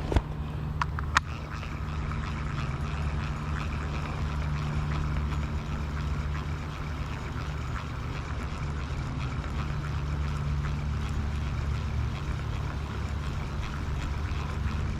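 Steady low engine drone that holds even throughout, with two sharp clicks about a second in.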